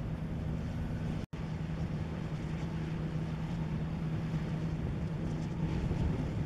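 Steady low engine drone from a passing ship, with wind rushing on the microphone. The sound drops out for an instant about a second in.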